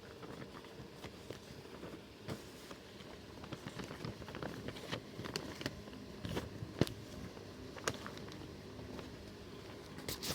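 Paper duck cutouts and their paper play pieces being handled: soft rustling with scattered light taps and clicks, a few sharper ticks about two, seven and eight seconds in.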